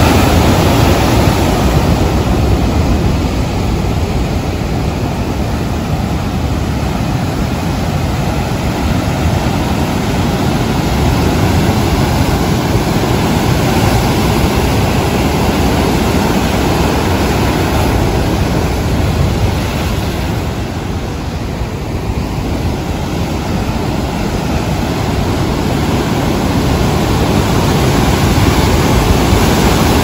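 Rough sea surf: large waves breaking over rocks and churning white water in a loud, continuous rush, which eases briefly about two-thirds of the way through.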